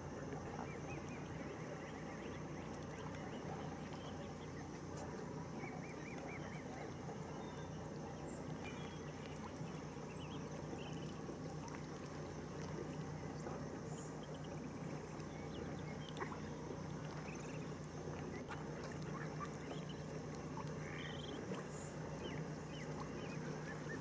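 Waterbirds calling faintly now and then over a steady low hum and constant background hiss.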